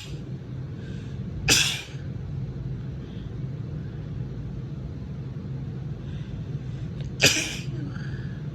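A woman sneezes twice, once about a second and a half in and again near the end, each a short, sharp sneeze. Itchy allergy sneezes, which she thinks are from her allergies acting up. A steady low hum runs underneath.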